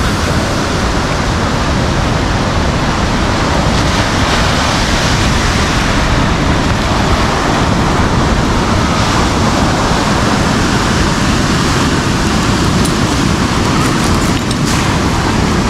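Big Indian Ocean surf breaking on a sandy beach: a continuous loud wash of waves, with wind on the microphone.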